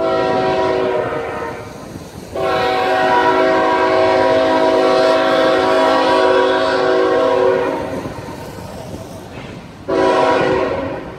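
Diesel freight locomotive's air horn sounding three blasts as the train approaches: a blast of about two seconds, a long blast of about five seconds, then a short blast near the end. Each is a chord of several steady tones, with the train's faint running rumble between them.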